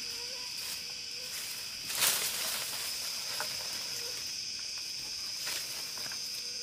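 Steady high-pitched insect chorus, with one brief, louder burst of noise about two seconds in.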